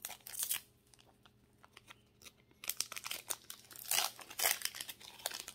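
Foil wrapper of a Pokémon card booster pack crinkling and being torn open by hand. There is a short burst of crinkling at the start, a lull, then a longer run of crackling and ripping from about halfway through.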